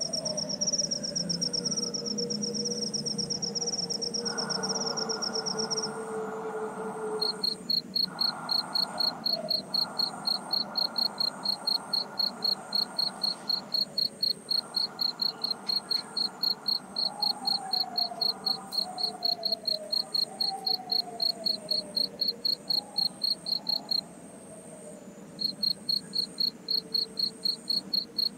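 Crickets chirping in rhythmic pulsed trills: one high-pitched trill stops about six seconds in, and a second, slightly lower chirping starts a second later, keeps an even rhythm, breaks off briefly near the end and starts again.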